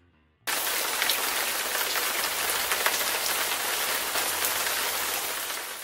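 A steady hiss with a fine crackle, like rain or static, starting suddenly about half a second in and fading away at the end: a noise sound effect under a logo ident.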